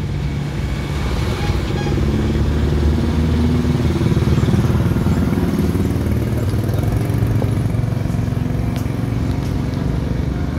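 Steady roadside traffic with motorcycle engines running close by, a continuous low rumble.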